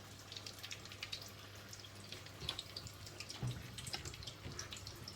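Samosas shallow-frying in hot oil, nearly done: a faint sizzle with many small scattered crackles and pops.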